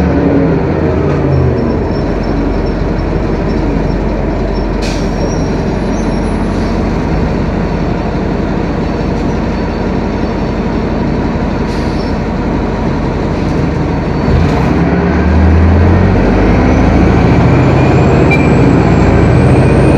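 Detroit Diesel Series 50 four-cylinder diesel of a New Flyer D40LF bus, heard from the rear of the cabin: the engine note drops away about a second and a half in, leaving steady road and cabin noise with a couple of rattles. The engine pulls again near the end, with a rising whine.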